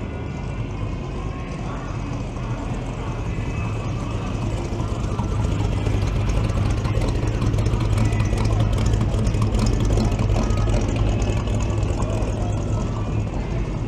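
A classic vehicle's engine and exhaust as it drives past, a low steady rumble that grows louder through the middle and eases near the end.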